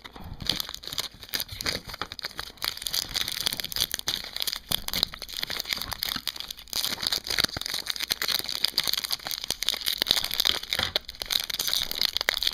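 Foil wrappers of Upper Deck hockey card packs crinkling and tearing as packs are opened, with cards riffled through by hand: a dense, continuous run of crackles starting about half a second in.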